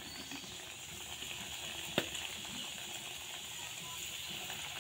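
Small raw singaras (samosas) frying in hot oil in a kadai, a steady crackling sizzle as they are added one by one. A single sharp tap about two seconds in.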